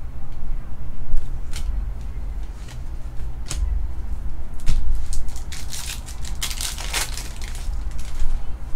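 2021 Panini Certified football cards being handled: cards slid, tapped and shuffled against each other in short scrapes and clicks, with a denser rustle of handling about five to seven seconds in. A steady low hum runs underneath.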